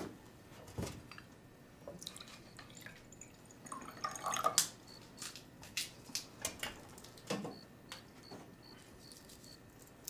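Water poured from a thermos flask into a glass about four seconds in, with light clinks and knocks of the glass and flask before and after.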